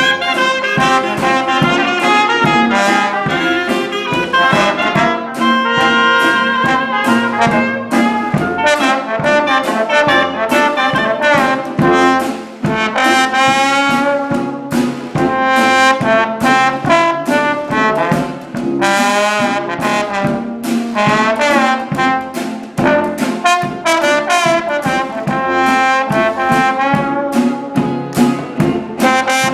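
Small traditional New Orleans jazz band playing live. The trombone plays out front with a wavering tone over sousaphone and a steady bass drum beat.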